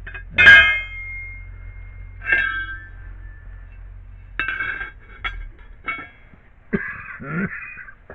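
Pieces of steel bracket stock clanking against each other as they are handled. The first hit, about half a second in, rings on for over a second; a second ringing clang follows, then several lighter clinks.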